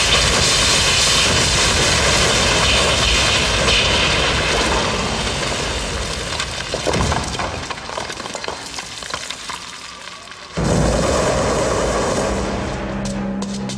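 Loud rushing, hissing dramatic sound effect, like a gust or surge of energy, that thins out over several seconds; about ten and a half seconds in a sudden deep rumble cuts in, and near the end a sustained low musical note begins.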